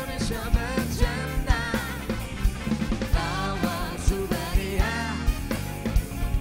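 A song plays over the closing credits: a sung vocal line over a steady drum-kit beat.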